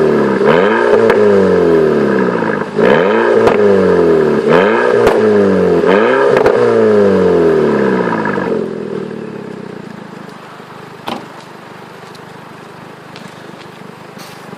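Volkswagen Golf Mk5 GTI's turbocharged 2.0-litre four-cylinder engine being revved, its pitch rising quickly and falling back four times. After about eight and a half seconds it drops to a much quieter steady sound, with a single sharp click about three seconds later.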